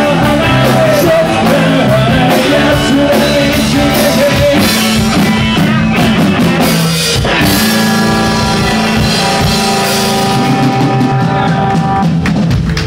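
Live rock band playing loud: electric guitars, bass guitar and drum kit, with a sung vocal line for the first second or so before the guitars carry the song instrumentally.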